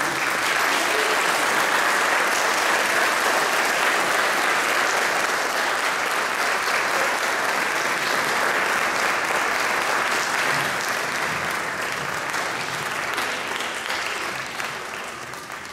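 An audience applauding a stage performance: a full, steady round of clapping that fades away over the last few seconds.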